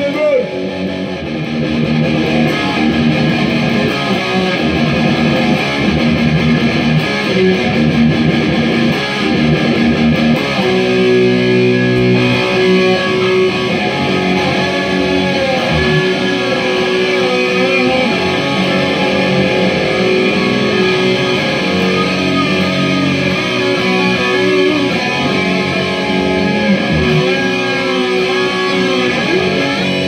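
Electric guitar playing an instrumental break of a rock song, strummed chords at first, then notes bent up and down in the second half.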